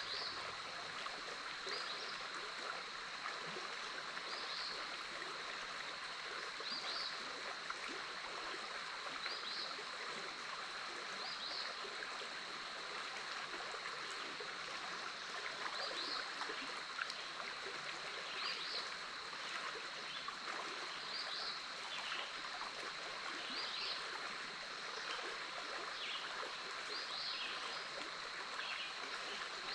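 Big Otter River flowing steadily past its sandy bank, an even rushing of water. Over it run a steady high drone and short high calls repeating about every two to three seconds.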